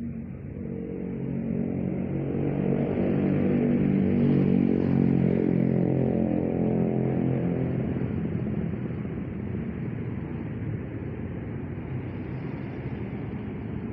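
A motor vehicle's engine passes by, growing louder to a peak about four to five seconds in and then fading away.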